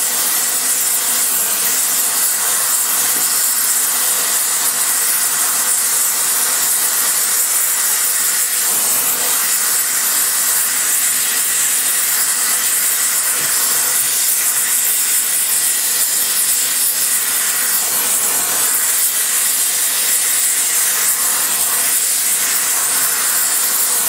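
Flame of a cast iron spray-welding torch hissing steadily while preheating a cylinder head's combustion chamber before spray welding.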